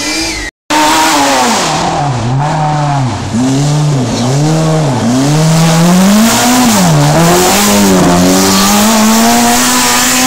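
Small hatchback rally car's engine revving hard on a tarmac stage, the pitch climbing and falling about six times in quick succession as the throttle comes on and off, then settling into a longer, slower climb. The sound cuts out briefly about half a second in.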